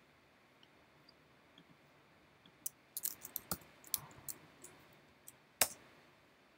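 Computer keyboard keys tapped in a quick run of about a dozen light clicks, followed about a second later by a single louder click.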